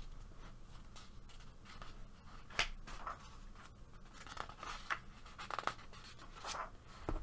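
Soft paper rustling from hands handling the pages of a paperback coloring book, with a few short, sharper page sounds as a page is lifted to be turned.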